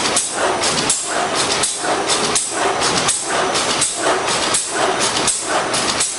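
Plastic-bag cutting machine running, cycling with a steady rhythmic clatter and hiss about once every three-quarters of a second as it cuts printed plastic bag film.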